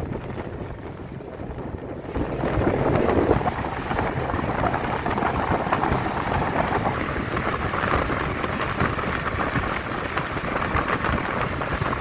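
Wind buffeting the microphone over the rush of water from a boat under way at sea; it gets louder about two seconds in.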